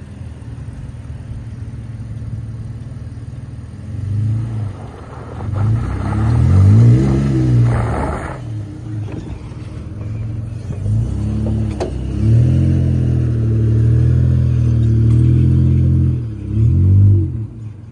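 2022 Nissan Frontier's 3.8-litre V6 revving in repeated bursts as the pickup climbs a dirt hill off-road, the pitch rising and falling with the throttle and holding steady for a few seconds near the end.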